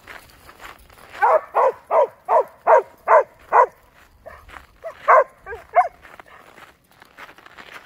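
Dog barking: a quick run of about seven barks, roughly three a second, then after a short pause three or four more.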